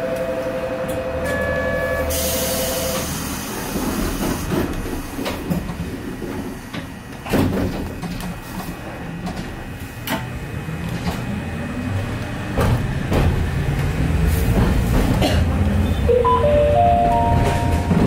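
Hankai Tramway tram Mo 603 heard from the cab: a steady two-note tone over the first few seconds, a short hiss of air about two seconds in, then rumbling with scattered clicks. Near the end its motor whine rises in steps as the tram gathers speed.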